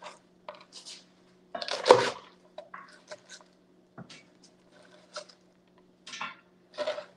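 Chef's knife chopping through red cabbage onto a cutting board: a string of irregular crisp chops and knocks, the loudest about two seconds in. A faint steady hum lies under it.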